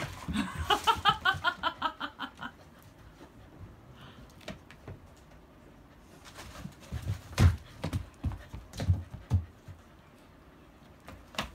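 Akita dogs moving about and playing: a rapid run of short high squeaks in the first two seconds or so, then scattered thumps and scuffles of paws on the floor mat.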